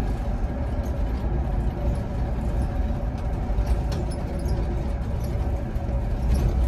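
Cabin noise of a Solaris Urbino 12 electric city bus driving at a steady speed: a low road and tyre rumble with a steady whine over it, and faint scattered ticks.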